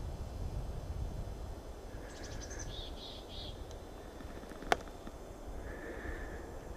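Quiet forest ambience with a low rumble. A few short bird chirps come about two to three seconds in, and there is a single sharp click about two-thirds of the way through.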